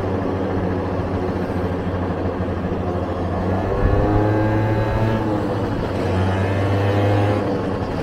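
Vespa scooter's single-cylinder engine running at cruising speed, with wind rumbling on the microphone. About four seconds in, the engine note rises briefly, then eases back down.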